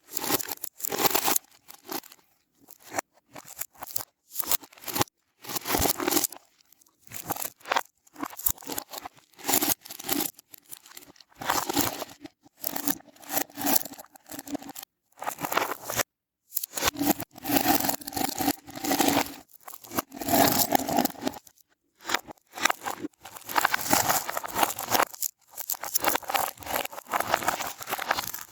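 Slime balls being squeezed and pulled apart by hand, in repeated short bursts with brief pauses between.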